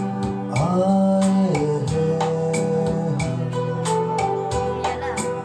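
Music with a steady beat and held tones, with a melody sliding up in pitch about half a second in.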